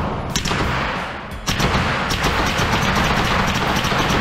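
CZ Scorpion EVO 3 9mm submachine gun firing in an indoor range lane: two separate shots in the first second and a half, then a fast, continuous string of shots, echoing off the range walls.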